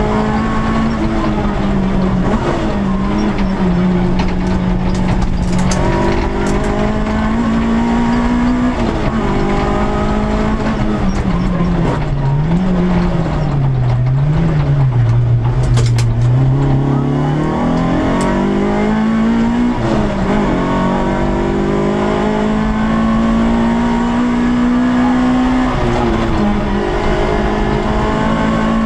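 Peugeot 106 S16's 1.6-litre 16-valve four-cylinder engine, heard from inside the cabin while driven hard on a rally stage, pulling up through the gears with a short drop in pitch at each shift. About twelve seconds in, the revs fall sharply as the car slows, with a couple of quick blips on downshifts. Around seventeen seconds it accelerates hard and climbs through the gears again.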